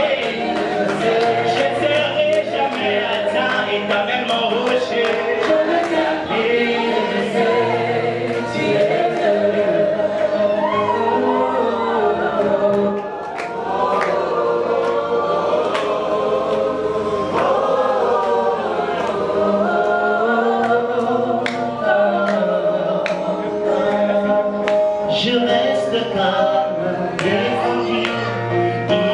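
Gospel choir singing a slow worship song over instrumental backing, the voices holding long sustained notes, with a brief dip in loudness about halfway through.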